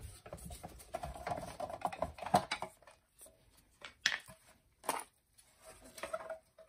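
Plastic side cover of an e-bike frame being pulled off and handled: rubbing and scraping at first, then a few separate sharp clicks and taps about four and five seconds in.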